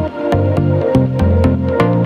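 Electronic background music with a steady beat of light percussion ticks over a changing bass line and sustained synthesizer tones.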